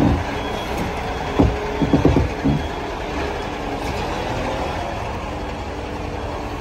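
Kato SL-800Ri crane's diesel engine running as it reverses slowly, its reversing alarm beeping. A few heavy clunks sound in the first two and a half seconds, then the engine runs on steadily.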